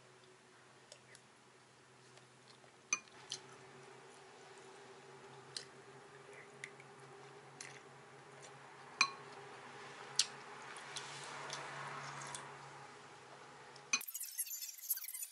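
A metal spoon clinking now and then against a ceramic soup bowl while eating: a dozen or so light, separate clinks over a faint steady hum. Near the end a louder, busier sound cuts in abruptly.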